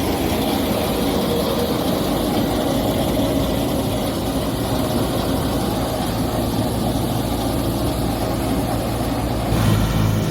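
Engine of farm harvesting machinery running steadily; near the end the sound changes abruptly to a lower, throbbing engine note.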